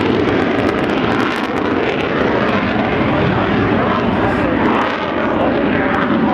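Saab JAS 39 Gripen fighter jet in flight, its single turbofan engine making loud, steady jet noise.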